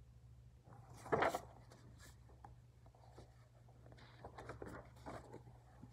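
Rustling and handling of a hardcover picture book as its pages are turned, with one louder brush of paper about a second in and faint scattered rustles later, over a low steady hum.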